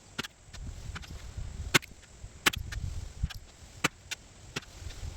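Wind rumbling on the microphone, with a series of sharp clicks at irregular spacing. The loudest click comes just under two seconds in.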